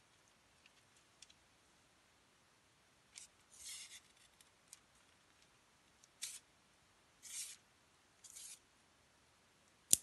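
Double-edged blade of a Microtech UTX-85 out-the-front knife slicing through a sheet of paper in about five short hissing cuts, then a single sharp click near the end.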